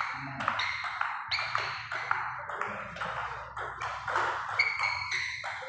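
Table tennis rally: the ping-pong ball clicking off the paddles and bouncing on the table, about two hits a second, some with a short high ring.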